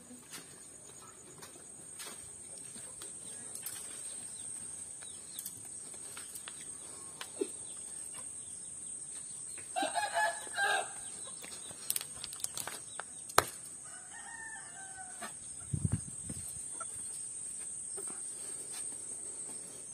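A rooster crows once about ten seconds in, and a shorter crow follows a few seconds later, over a steady high-pitched whine. A few sharp clicks and a dull thump near the end.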